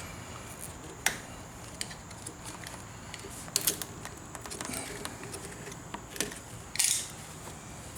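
Scattered sharp clicks and taps from hand tools and parts being handled at a motorcycle handlebar, with a short scrape near the end.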